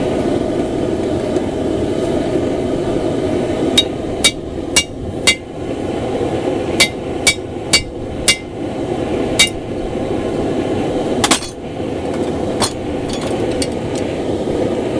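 Forge running with a steady roar, with hammer blows ringing on steel over it: four quick strikes at about two a second, a short pause, four more, then scattered single blows. The hammer is driving a nail used as a makeshift punch into the hot axe blank.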